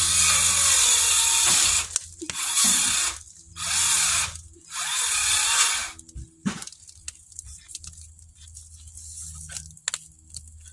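Air blown onto a wood fire in four long rushing gusts to liven the flames under a canning pot, followed by faint clicks and knocks from the fire.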